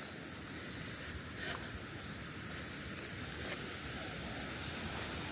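Steady rush of a creek running high over rocky shoals and small falls, a continuous even noise.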